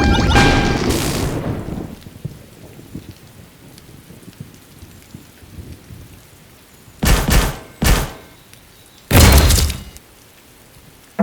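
A short phrase of music ends in a crash, then a steady rain-like hiss runs on, broken by three sudden loud crashes: two close together about seven seconds in and a heavier, rumbling one about two seconds later.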